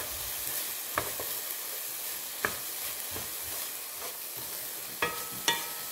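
A wooden spatula stirs and scrapes diced red onion in a dry nonstick pan, with a soft sizzle as the onion cooks without oil. A few sharp taps of the spatula on the pan come through the stirring.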